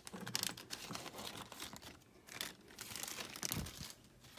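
Clear plastic zip-top bag crinkling and rustling as it is worked off a small terracotta pot by hand, with a soft thump near the end.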